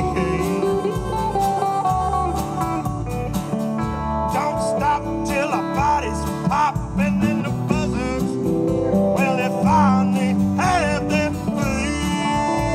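Live band playing an instrumental break in a country song, guitar to the fore, with bending lead notes over a steady beat of percussive hits.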